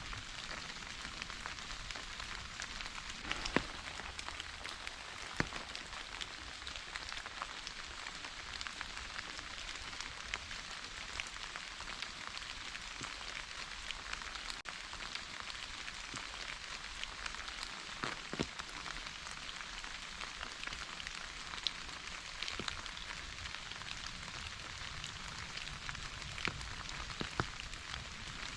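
Steady rain falling, a dense even hiss with scattered sharper drop ticks standing out now and then.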